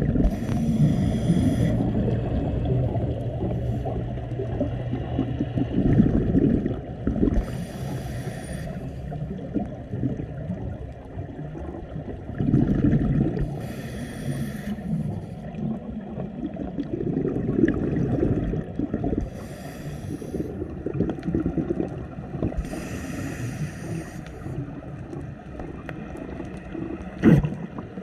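Scuba regulator breathing underwater: five bursts of exhaled bubbles burbling out a few seconds apart, over a steady low rumble of water against the camera. A brief sharp click near the end.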